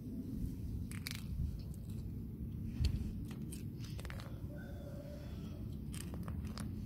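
Plastic toy animal figures being handled and knocked together: scattered sharp clicks and taps, the loudest about three seconds in, over a low rumble of handling noise.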